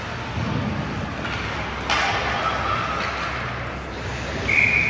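Ice hockey rink ambience during a game: a steady wash of arena noise with a sharp stick-or-puck knock about two seconds in, and a steady high tone starting near the end.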